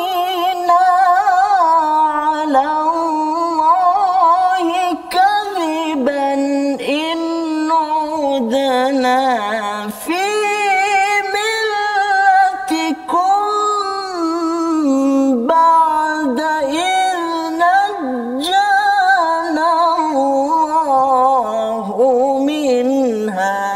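A man's solo Quran recitation in the melodic tarannum style: long held, ornamented notes that waver and glide in pitch, broken by a few short breaths.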